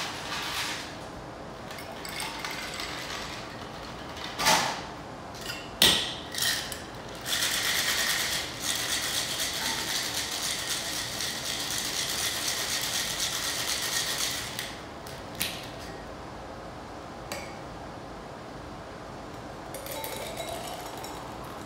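Ice rattling hard in a metal cocktail shaker, shaken in a fast even rhythm for about seven seconds, after a few sharp knocks of ice and tin, the loudest about six seconds in. Near the end, the shaken drink is poured from the tin into a wine glass.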